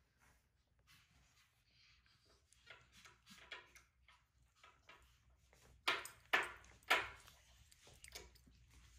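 Soft rustling and small clicks, then three sharp knocks in quick succession a little past the middle.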